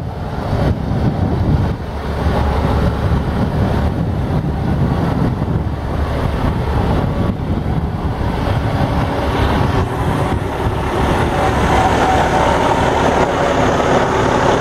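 Cummins ISX diesel engine of a 2012 Peterbilt 389 idling steadily, growing a little louder and brighter near the end as the front of the truck is reached, with wind rumbling on the microphone.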